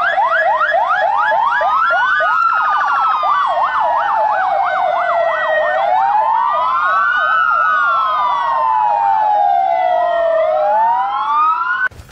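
Electronic sirens of police vans sounding together: a fast repeating yelp at first, then a rapid warble layered with slow rising-and-falling wails. They cut off suddenly just before the end.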